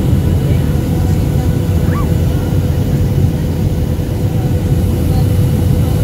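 Boeing 737-800 cabin noise at a window seat near the wing on descent: a loud, steady low rumble of airflow and the CFM56-7B turbofan engines, with a steady hum over it.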